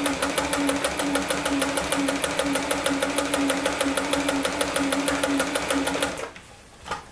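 Olimatic 4000 household sewing machine running, its motor humming under a rapid, even ticking of the needle stroke as it sews a stretch-stitch seam. It stops abruptly about six seconds in.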